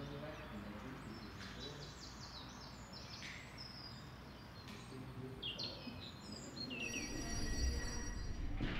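Small songbirds chirping, many quick falling chirps, over a steady background hiss. Near the end a low rumble comes up and the background grows louder.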